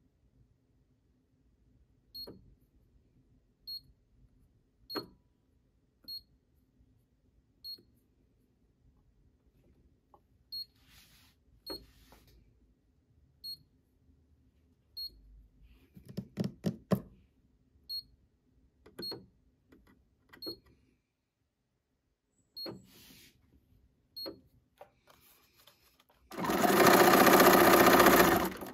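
Bernina sewing machine: short high electronic beeps every second or two, several with a soft click, and a quick run of clicks about halfway. Near the end the machine starts stitching through paper and runs steadily for about two seconds, the loudest sound.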